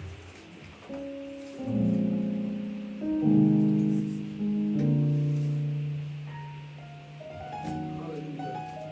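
A keyboard playing slow, held chords that change every second or two, swelling and fading as each new chord is struck, and ending on lighter, higher notes.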